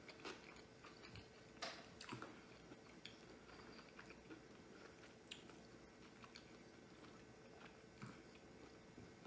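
Faint chewing and wet mouth clicks from a person eating a sushi roll, a few scattered smacks with the clearest about a second and a half in.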